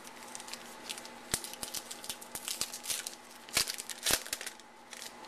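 A trading-card pack's wrapper crinkling and tearing as the pack is opened by hand, a run of short crackly clicks with two sharper snaps about three and a half and four seconds in.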